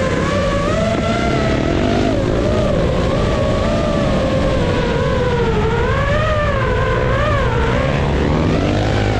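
FPV drone's propellers whining steadily, the pitch rising and falling as the throttle changes, over a heavy low rumble.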